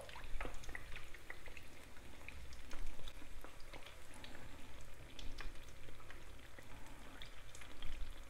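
Pieces of pişi dough deep-frying in a pan of hot oil: steady sizzling with many small crackles and pops, while hot oil is spooned over them to make them puff up.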